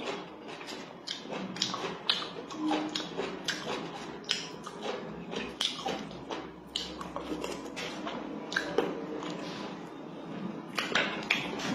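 Close-up eating sounds: a person chewing rice and fried pork, with frequent irregular clicks and smacks from the mouth and light taps of chopsticks in a foam takeout box.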